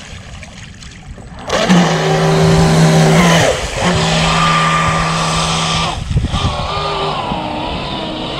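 ProBoat SonicWake 36-inch RC boat's brushless motor and 3-blade 40 mm prop under power: a steady high whine over a rushing hiss starts suddenly about a second and a half in. The whine dips and breaks briefly about two seconds later, comes back, then eases about six seconds in to a quieter tone that wavers in pitch.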